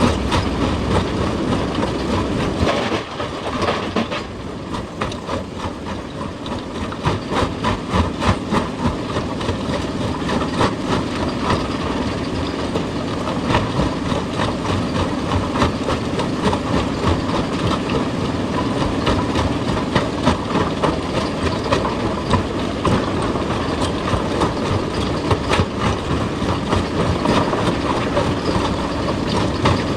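Heavy machinery, typical of an excavator at work on rock, running with a dense, continuous clatter of knocks and rattles. The clatter eases briefly a few seconds in, then builds again.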